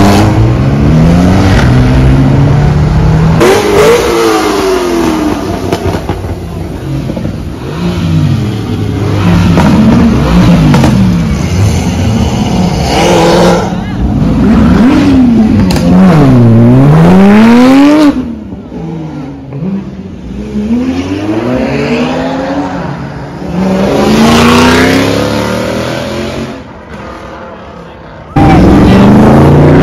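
Cars accelerating hard past one after another, their engines revving up and falling back through gear changes, loud. A quieter stretch comes after the middle, then a sudden loud car sound near the end.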